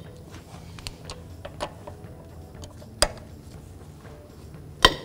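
Lug nuts cracking loose under a breaker bar and socket: two sharp cracks about two seconds apart, with a few lighter metal clicks before them, over a low steady hum.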